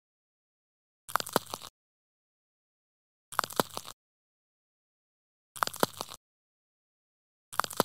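A short edited-in sound effect, about half a second of sharp clicks and crackle. It plays identically four times, about every two seconds, with dead silence between.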